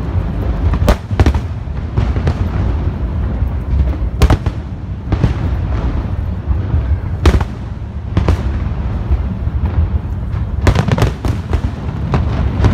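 Aerial firework shells bursting overhead: a string of sharp bangs every second or two over a continuous low rumble, with a quick cluster of bangs near the end.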